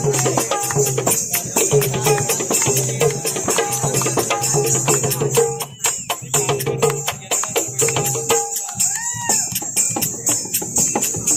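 Lively folk dance music driven by a fast dholki drum rhythm, with jingling percussion and sustained melody notes underneath.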